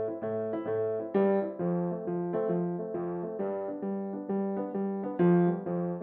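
Piano accompaniment playing a bouncy, evenly paced figure of separate notes, about two or three a second. Louder accented notes come about a second in and again about five seconds in.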